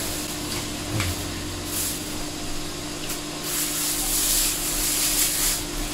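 Clear plastic bag rustling and crinkling as fresh rice noodles are pulled out by hand and dropped into a pan of water, with a steady hum underneath.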